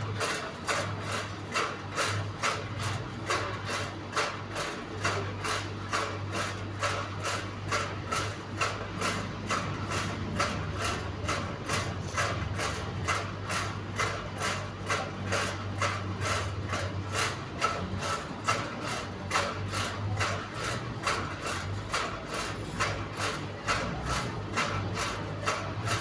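Fan turbine running with a steady low hum and a regular clicking knock, two to three times a second: the strange noise it is making.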